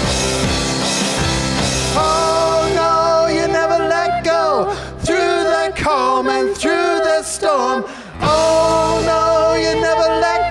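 Live worship band playing a song on guitars and keyboard, with singers holding long sung notes.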